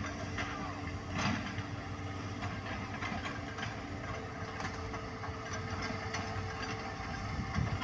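Excavator engine running steadily at a constant speed.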